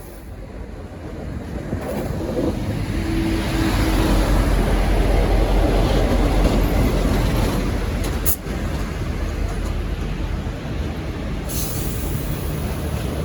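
V/Line N class diesel-electric locomotive arriving along the platform: its engine and wheels make a low rumble that grows loud over the first few seconds and then holds steady, with a sharp click about eight seconds in.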